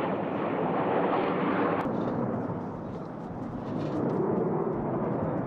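Jet fighter engines in a fly-past: a loud, broad rumble whose upper hiss falls away about two seconds in, with a slight dip near three seconds before it swells again.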